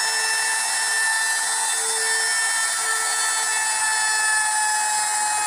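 Power tool running steadily on wood: a constant whine of several tones over an even hiss.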